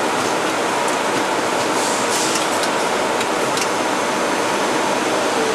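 Steady hiss of running production machinery, with a few faint ticks about two to three and a half seconds in.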